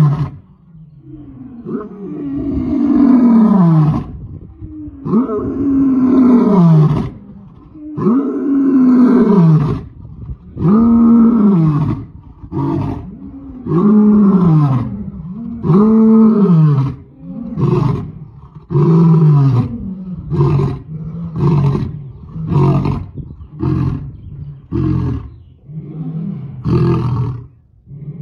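Male white lion roaring a full roaring bout: several long, deep roars, each falling in pitch, then a run of shorter grunting roars that come faster, about one a second, toward the end.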